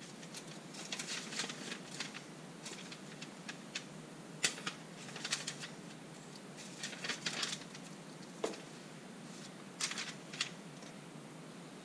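Small metal parts and a screw being handled and fitted by hand on a stern drive: irregular clusters of light clicks and taps, with one sharper click about four and a half seconds in.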